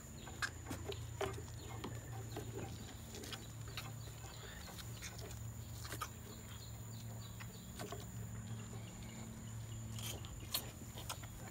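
Calves suckling and mouthing at a milk bottle: irregular wet sucking and smacking noises with a few sharp clicks, over a steady low hum.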